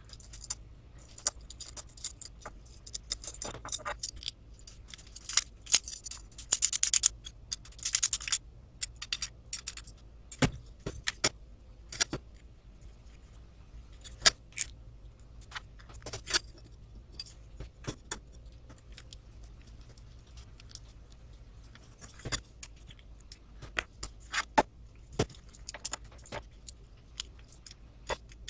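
Hand assembly of an RC truck kit chassis: irregular light clicks and clinks of small screws, a screwdriver and the chassis frame rail being handled and driven together, with a few brief scraping rustles in the first several seconds.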